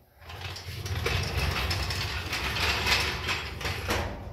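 Steel floor jack rolled across a concrete floor, its wheels and frame rattling steadily for about four seconds before fading out.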